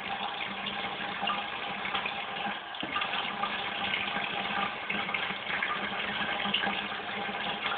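Water tap running steadily into a sink.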